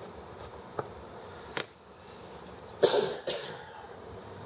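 Light clicks of small metal parts as the cylinder head of a miniature model engine is unbolted and lifted off, then two short coughs close together about three seconds in.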